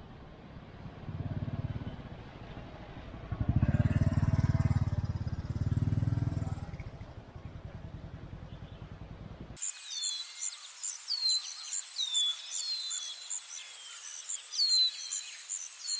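Motorcycle engine running, swelling louder three times, the loudest about four seconds in. About nine and a half seconds in it cuts off abruptly to birdsong: rapid high chirps with repeated falling whistles.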